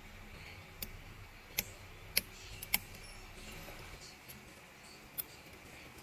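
A handful of small, sharp clicks and taps, five in all and spaced irregularly, made by repair tools handling a smartphone's parts during a volume-button replacement.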